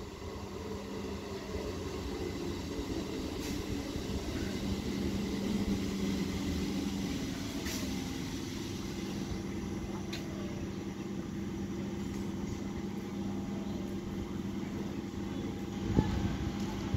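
Electric multiple unit (EMU) local train drawing in and slowing, its electrics and running gear giving a steady hum with faint falling whines as it brakes. A sharp knock comes about sixteen seconds in.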